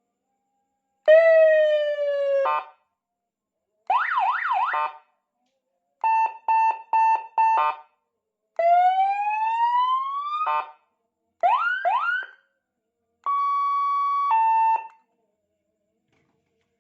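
Electronic seven-tone police escort siren sounding its tones one after another, each a second or two long with short gaps: a slowly falling wail, a fast warble, five short beeps, a rising whoop, two quick rising chirps, then a steady high tone that drops to a lower one.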